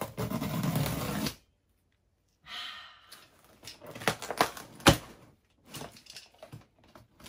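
Box cutter slicing along the packing tape of a cardboard box, a steady scraping cut for about a second and a half. Then softer scraping and a run of clicks and knocks as the box is handled, the sharpest knock about five seconds in.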